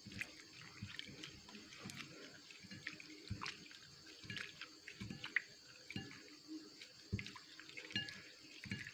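Hands squeezing and kneading a handful of gotu kola (pegagan) leaves in water: faint, irregular small squelches, splashes and drips as the juice is wrung out of the leaves.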